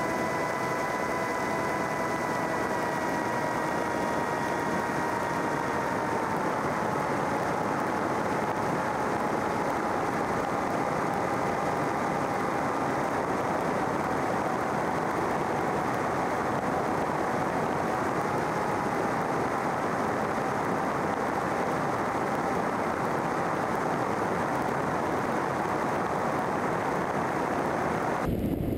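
Rotax 912UL flat-four engine and propeller of a Kolb MK3 ultralight droning steadily in flight, under a heavy rush of air noise. The engine note steps down in pitch a few seconds in as the revs drop.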